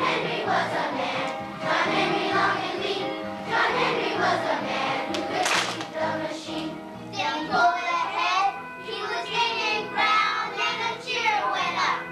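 A choir of elementary-school children singing a song together, over instrumental accompaniment.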